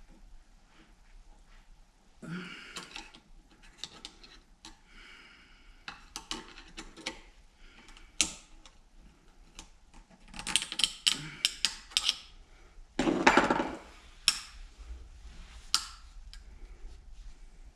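Metal parts of a Jaguar E-Type trunk hinge and spring assembly being handled while a bolt is worked into the hinge by hand: scattered metallic clicks and clinks, with a short scrape about 2 s in, a quick run of clicks past the middle, and the loudest scrape about 13 s in.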